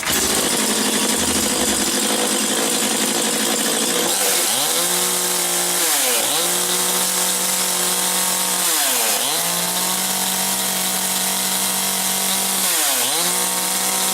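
Sadko GCS-254 small two-stroke petrol chainsaw running at high revs. It holds steady for the first few seconds, then its pitch dips briefly and climbs back four times.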